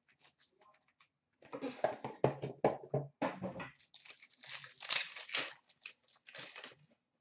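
A cardboard box of Panini Contenders hockey cards being torn open and its foil-wrapped packs pulled out and handled, crinkling and rustling in several spells from about a second and a half in.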